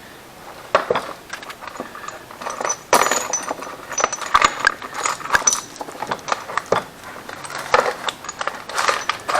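Small metal parts and tools being handled: irregular clinks, taps and scrapes, some with a short bright metallic ring.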